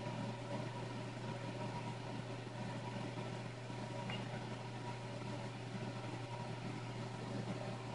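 Steady low hum over a soft hiss from a running desktop computer, with one faint click about four seconds in.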